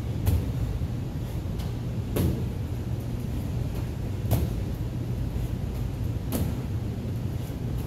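Medicine ball thudding against the wall target on each wall-ball throw, four knocks about two seconds apart, over a steady low hum.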